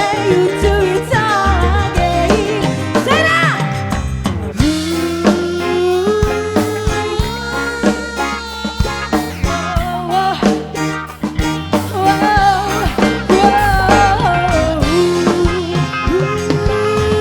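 Live dangdut (Orkes Melayu) band playing an instrumental passage through a large sound system: a drum beat under a winding melody line.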